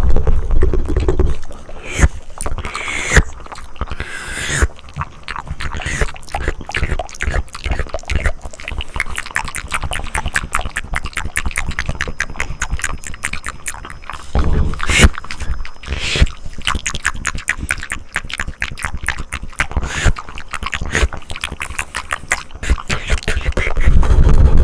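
Close-miked ASMR mouth sounds: a dense run of rapid wet clicks, with a few louder stretches.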